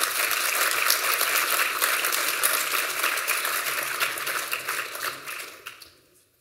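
Audience applauding, many hands clapping together, the applause fading away near the end.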